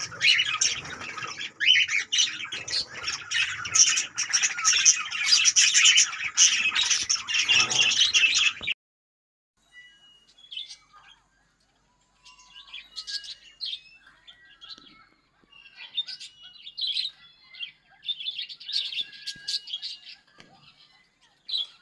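Pet budgerigars and cockatiels chattering and squawking: a dense, loud burst of overlapping high calls that cuts off abruptly after about nine seconds, then, after a short pause, sparser and quieter chirps and calls.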